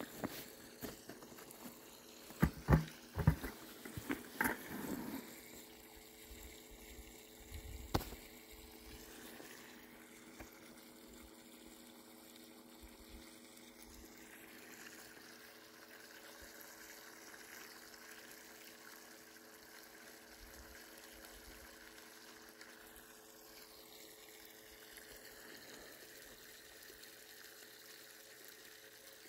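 Borrowed sump pump running in the ditch, a steady hum, with water trickling. A few sharp knocks come between about two and five seconds in, and another about eight seconds in.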